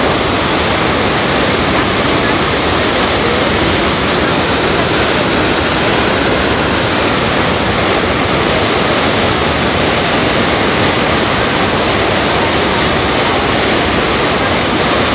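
The Rhine Falls thundering: a loud, steady rush of falling water without a break.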